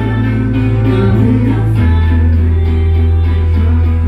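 A live indie rock band playing, with a woman singing lead over electric guitar, bass and a steady beat. The bass drops to a lower note about two seconds in.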